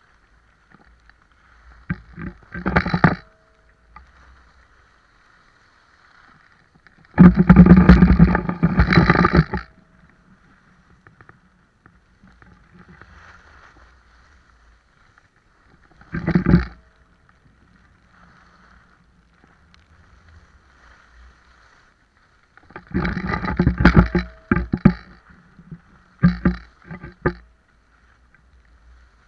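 Rushing noise of downhill skiing: skis scraping and hissing over packed snow with wind on the camera microphone, surging loud in about five separate bursts with a faint steady hiss between them.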